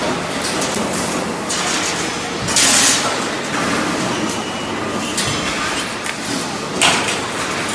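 Wire butt welding machine and workshop machinery running, a steady noisy din with two short, louder hisses, one about two and a half seconds in and one near the end.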